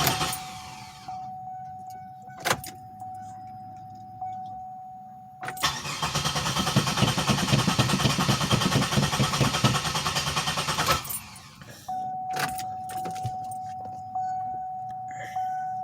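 A 2007 Pontiac Grand Prix's starter cranks the engine twice, the second time for about five seconds, without it catching: a crank-no-start. A steady high electronic tone sounds between and after the attempts.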